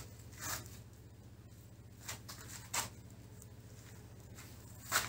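A few short rustles and swishes of nylon fishing net being pulled and handled: once about half a second in, a cluster around two to three seconds, and once near the end, over a steady low hum.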